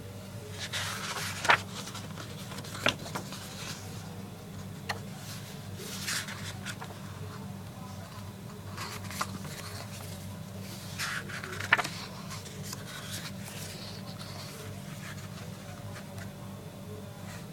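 Packaging being handled during an unboxing: intermittent rustling and scraping with a few sharp clicks, the loudest about a second and a half in and near twelve seconds, over a steady low electrical hum.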